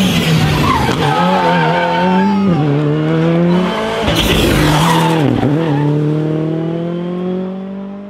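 Rally car engine revving hard as it accelerates up a hill road, its pitch dropping with gear changes, with tyre noise. It climbs steadily again and fades out near the end.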